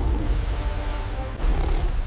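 Dramatic background music with held tones over a heavy, deep rumble, swelling louder about one and a half seconds in.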